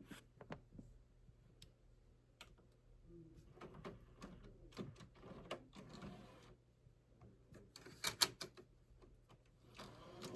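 Faint, irregular mechanical clicks and taps over a steady low hum, with a louder cluster of clicks about eight seconds in. The sound cuts off abruptly at the end.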